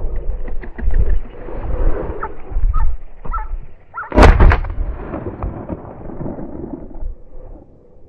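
A single shotgun shot about four seconds in, the loudest sound, with a short echo after it. Wind buffets the microphone throughout.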